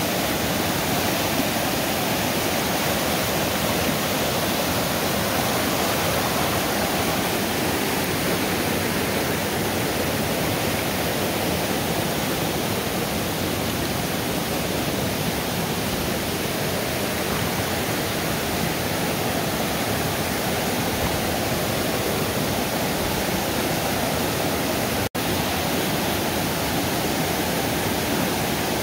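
Muddy river in flood rushing through rapids and over rocks: a steady, loud rush of fast water, swollen by storm rain. It drops out for an instant about 25 seconds in.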